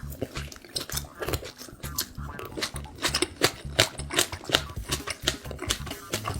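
Close-miked mouth eating spicy Korean pork: a quick run of wet smacking and crunching clicks as the food is chewed.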